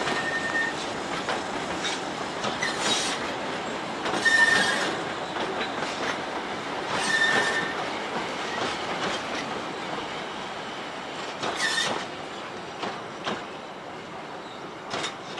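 Vintage railway passenger carriages rolling past on a curve, wheels clacking over the rail joints, with a brief high wheel squeal every few seconds. The sound fades as the train draws away.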